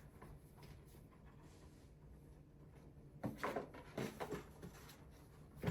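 Unboxing handling noise from packaging: a few short rustles and bumps about three to four and a half seconds in, and a sharp knock near the end.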